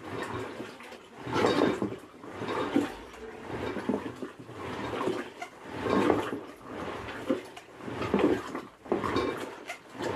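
Curd being churned into butter with a rope-pulled wooden churning stick (a Nepali madani) spinning back and forth in its vessel: a sloshing, swishing sound that swells and fades in a loose rhythm, a surge every second or two.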